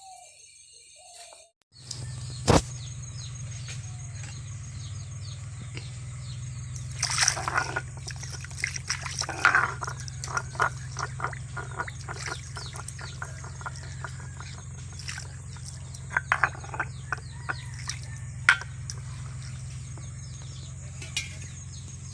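Irregular splashing of water and small clicks of handling, over a steady low hum, with the sound changing abruptly at about two seconds in.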